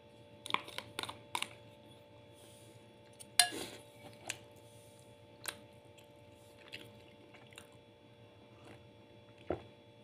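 Eating sounds: a plastic spoon clicking and scraping against a plate of rice and chicken, with chewing in between. The sharpest knock comes about three and a half seconds in, over a faint steady hum.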